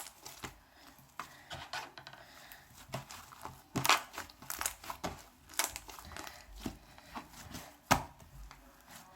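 Slime made with shaving foam being squished and stretched by hand, giving irregular crackles and small pops, with a few louder snaps along the way.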